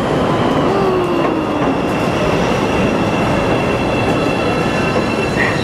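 Chicago 'L' elevated train running on the tracks: a loud, steady rail rumble with a thin, high, steady whine held over it throughout.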